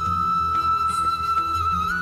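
Background music: a flute holding one long high note that bends up slightly near the end, over a steady pulsing bass accompaniment.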